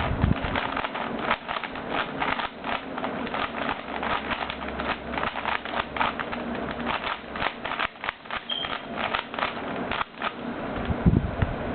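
Siamese Rubik's cube's plastic layers being turned by hand in quick succession: a fast, irregular run of clicks and clacks.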